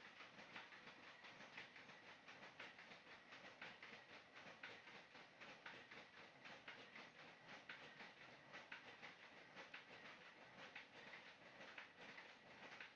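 Faint, rapid wet patting and splashing of hands smoothing mud in shallow water, packing it around a fish trap set in the bank.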